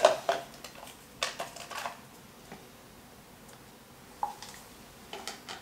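Red plastic party cups being handled on a wooden table: a few light taps and clicks in the first two seconds, then a few more near the end.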